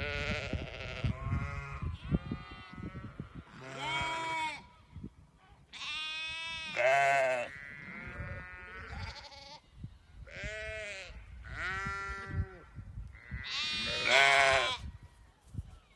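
A flock of Moroccan Sardi sheep bleating. There are about eight wavering calls in quick succession, some overlapping, with the loudest around seven seconds in and near the end.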